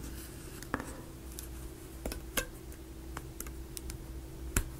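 A few light, scattered clicks and taps of small plywood model parts being handled, over a faint steady hum.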